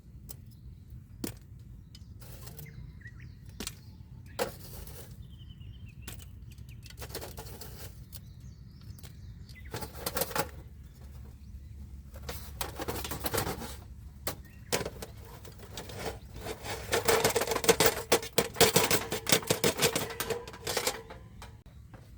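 Handling noise: scattered knocks and rustles, then a dense run of rapid clattering and rustling near the end.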